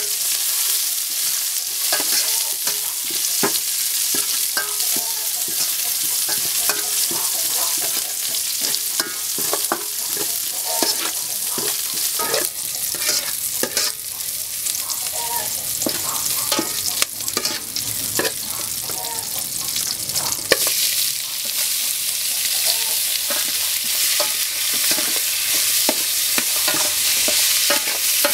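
Aromatics (lemongrass, galangal, lime leaves) frying in oil in an aluminium pot, a steady sizzle with frequent clinks and scrapes of a metal ladle stirring against the pot.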